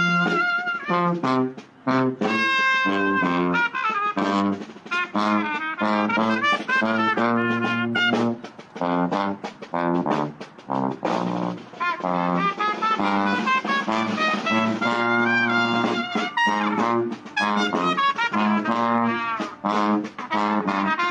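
Street brass band marching and playing a New Orleans-style tune: short, quick horn notes over a sousaphone bass line.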